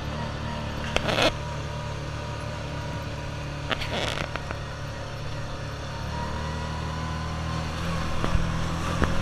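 Side-by-side ATV engine running steadily while driving on a muddy dirt trail, picking up a little near the end. Two short noisy bursts come about a second in and again about four seconds in.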